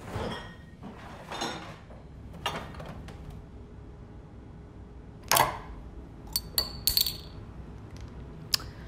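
Glass beer bottle being handled and opened: a few soft knocks, then a sharp burst about halfway through, followed by several light metallic clinks with a short ring.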